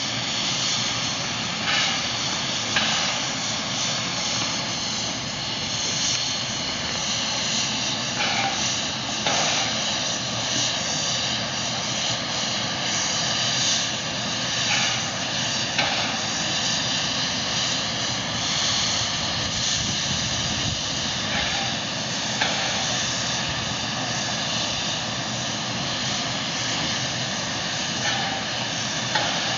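Steam hissing steadily from steam locomotive 3642 as it stands on the turntable, with a few short knocks now and then.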